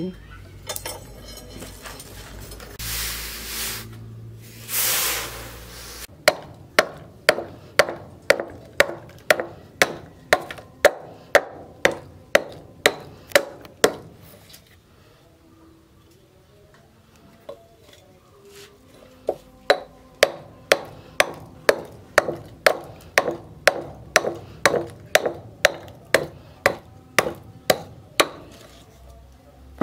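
A leaf-spring steel cleaver chopping a wooden block on a plank, sharp strikes at about two to three a second in two runs with a pause of several seconds between. Near the start there are two short bursts of hiss.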